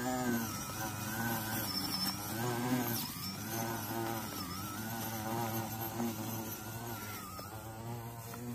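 Small electric motors of a homemade grass-cutting robot buzzing and whining steadily, the pitch wavering up and down as the motors run.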